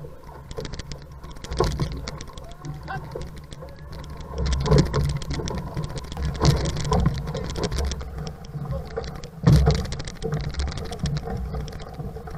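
Water rushing and splashing against an outrigger canoe's hull as the crew paddles, with wind rumbling on the microphone and loud surges of splash several times.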